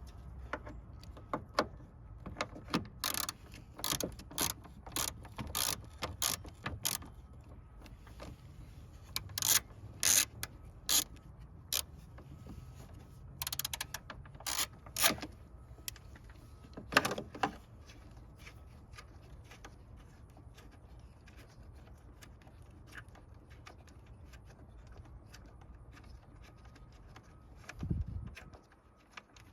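Hand-tool work on a car's radiator area: a run of sharp clicks and clinks, about two a second at first, then in short clusters, with one dull thump near the end.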